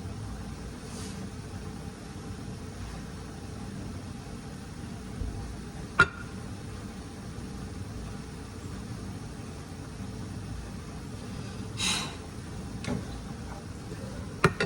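Steady low hum of a kitchen with a pot cooking, broken by a sharp click about six seconds in and by the clink and clatter of a metal pot lid being handled near the end.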